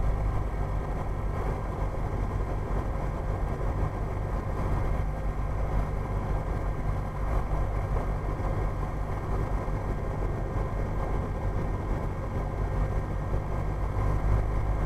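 Cessna 172's piston engine running steadily at low power while the plane taxis, an even propeller-and-engine drone heard from inside the cockpit.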